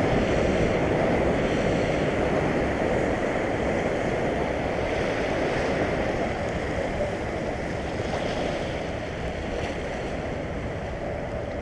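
Surf breaking and washing over shoreline rocks: a steady rush of foaming seawater that eases slightly toward the end.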